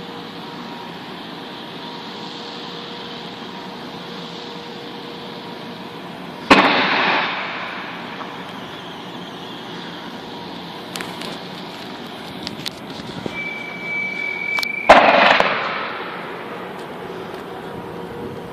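Heavy booming bangs from the Jorf Lasfar (JLEC) thermal power plant over a steady hum. One loud bang comes about six seconds in, followed by a few smaller pops and a short steady whistle. A second loud bang comes about fifteen seconds in, and each bang trails off over a second or so.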